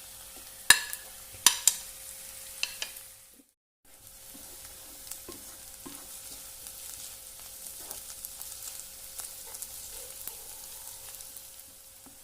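Prawns roast frying in a pan and being stirred, a steady sizzle with several sharp knocks of the spoon against the pan in the first three seconds. The sound cuts out for a moment about three and a half seconds in, then the sizzling goes on with faint scrapes and clinks.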